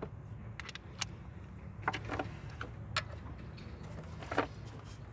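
Scattered metallic clicks and clinks of hand tools, a 15 mm socket and ratchet being handled and fitted onto the serpentine belt tensioner bolt, the loudest clink about four and a half seconds in, over a low steady hum.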